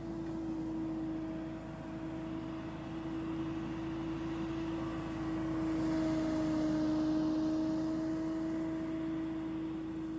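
Billy Goat P2000 stand-on leaf blower running at full output: a steady engine-and-fan drone over a wide rush of air, swelling louder for a couple of seconds midway as the machine passes close.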